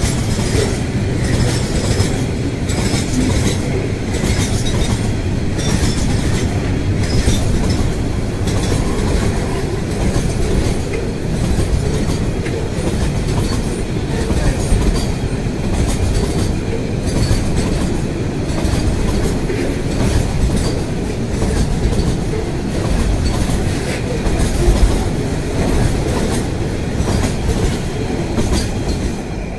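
Freight train of loaded container wagons rolling past close by: a steady rumble with the wheels clacking rhythmically over the rail joints. Near the end the brake van at the tail goes by and the sound begins to drop off.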